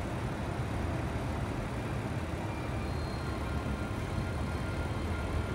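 Steady low rumble of station background noise, with a faint high steady tone coming in about three seconds in.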